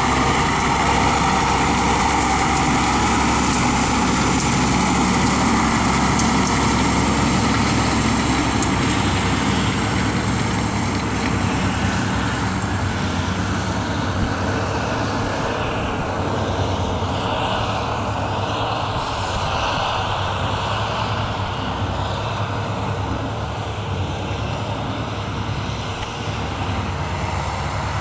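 John Deere tractor's diesel engine running steadily as it pulls a Pöttinger rotary grass rake through cut grass. The engine is loudest at first, fades somewhat as the tractor moves off, and grows again near the end as it comes back.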